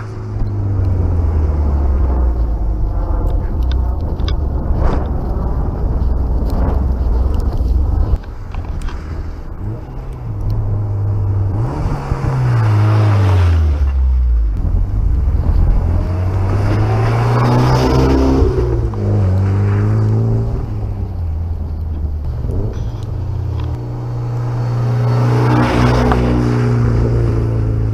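Mitsubishi Lancer Evolution X's turbocharged four-cylinder running through a MagnaFlow exhaust with a catless DC test pipe, its exhaust note rising and falling in pitch as the car is driven. The exhaust swells loudest about two-thirds of the way through and again near the end as the car passes close by.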